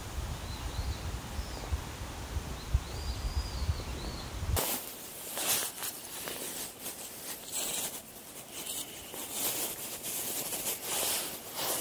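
Wind buffeting the microphone, with a few faint high bird chirps. About four and a half seconds in, this cuts to close, irregular rustling and scuffing from hands-on work pitching a pup tent.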